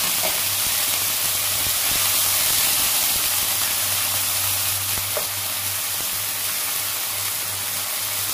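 Chopped vegetables sizzling in hot oil in a wok just after a splash of water is added: a steady hiss as the water boils off in steam, with a wooden spatula stirring through it.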